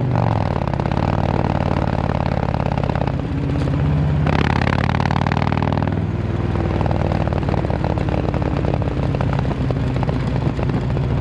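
Harley-Davidson touring bike's Milwaukee-Eight V-twin running through an S&S Sidewinder 2-into-1 exhaust, idling with a low, galloping beat and revved briefly about four seconds in. Wind buffets the microphone.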